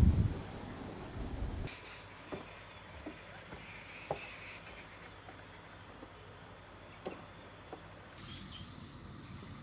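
A low rumbling noise at first. About two seconds in it cuts to a steady, high-pitched insect chorus with a few faint ticks. The chorus stops abruptly near the end.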